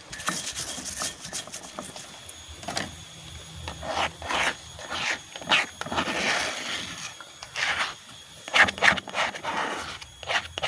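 Stone pestle grinding and scraping against a volcanic stone mortar (cobek and ulekan), in irregular strokes, as rice, tempe and biscuit are mashed into a sticky bait dough.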